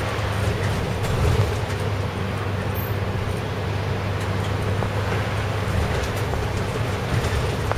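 City route bus engine running as the bus drives along a wet, slushy road, heard from inside the cabin: a steady low engine hum with tyre noise over it.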